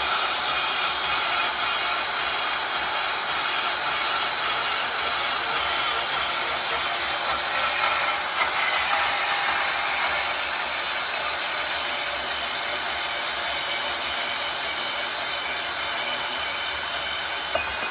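Portable band saw running and cutting through square metal tubing, a steady straight cut through the tube, with one sharp click near the end.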